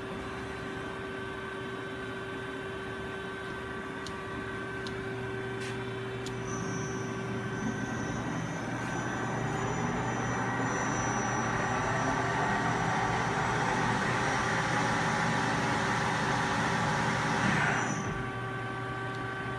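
Johnford ST-40A CNC lathe with its steady machine hum and a few faint clicks, then the spindle running: a high whine and rushing noise that build up over about ten seconds and stop abruptly near the end.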